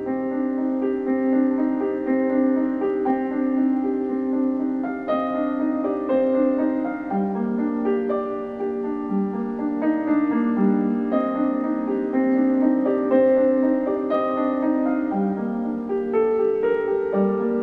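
Piano music: slow, held chords with a melody that moves about once a second.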